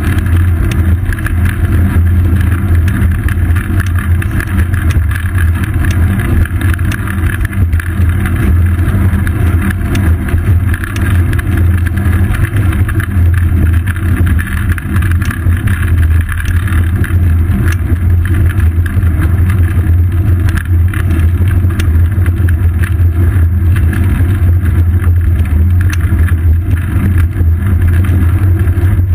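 Steady deep rumble of wind and road vibration picked up by a GoPro Hero 2 mounted on the seat post of a moving bicycle, with many small ticks and rattles over it.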